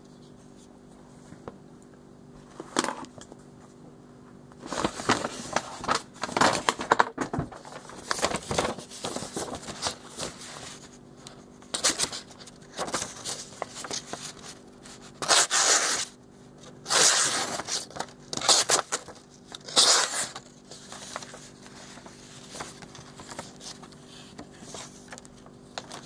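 Paper being sliced by the blade of an EL01KH liner lock folding knife: a string of rustling, tearing cuts with short pauses between them. A single sharp click comes a few seconds before the cutting starts.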